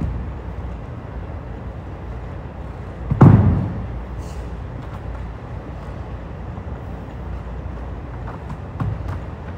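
A loud thud on a wooden gym floor about three seconds in, from a dumbbell power-clean and burpee workout, with a lighter thump near the end, over a steady low hum.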